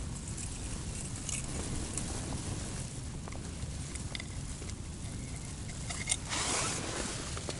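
Strong wind buffeting a winter fishing tent: a steady low rumble, with scattered small clicks and a louder rustle about six seconds in.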